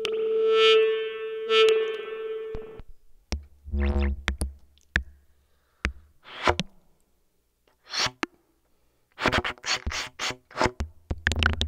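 Free improvisation on modular synthesizer and amplified trumpet. A held synth tone with many overtones cuts off after nearly three seconds. Sparse short clicks, low thumps and noisy bursts follow, with silent gaps between them, and grow denser near the end.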